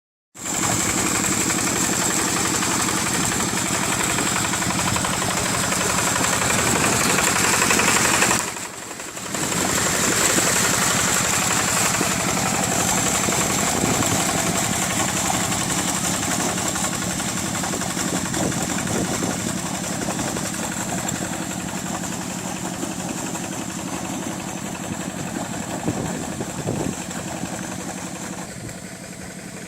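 Rice-field hand tractor engine running steadily, with a short drop in level about eight and a half seconds in, then gradually getting quieter toward the end.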